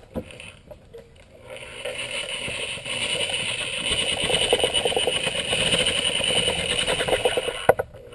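Handheld electric metal shears cutting through aluminum sheet: the motor running with a rapid chatter from the cutting blade. It builds up after a quiet second or so and cuts off with a click just before the end.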